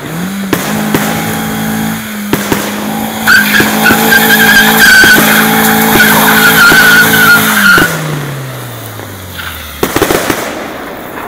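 Compact SUV's engine revved hard and held high while its wheels spin on concrete slabs, with a high tyre squeal through the loudest middle stretch as the tyres smoke. The revs then fall away near the end, followed by a few knocks.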